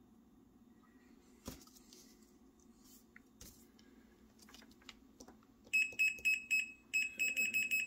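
Digital multimeter's continuity beeper giving a fast run of short beeps, about five a second, with a brief break in the middle, as the probe touches the decoder's red wire while the other lead is held to one side of a locomotive truck: the beeps confirm that the truck side connects to the red wire. Light clicks of handling the probes and wire come before it.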